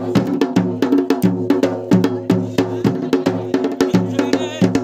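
Folk drums beating a fast, driving rhythm over a steady droning tone, accompanying a Pandav Nritya dance. A short warbling high note comes in about four seconds in.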